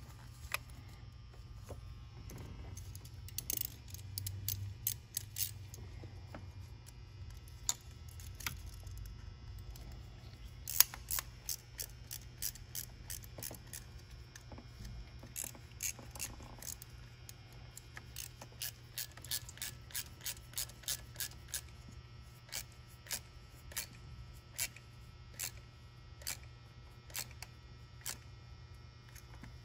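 Hand ratchet clicking in short strokes while a hose band clamp is tightened: scattered clicks at first, then a steady run of single clicks a little over one a second in the second half.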